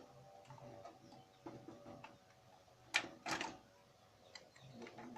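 Clicks and knocks of computer hardware being handled as the CPU fan is taken off its heatsink, with two louder knocks close together about three seconds in.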